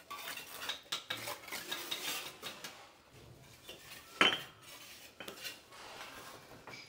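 Irregular clinking and tapping of small hard objects: a run of light clicks, then a sharper knock about four seconds in.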